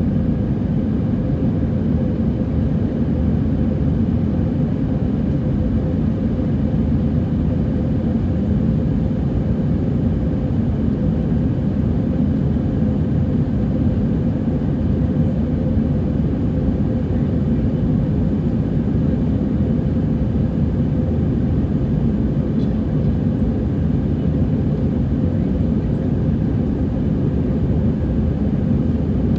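Steady cabin noise inside an Airbus A320 in its climb: the even roar of the twin turbofan engines and rushing air, with a steady hum running through it.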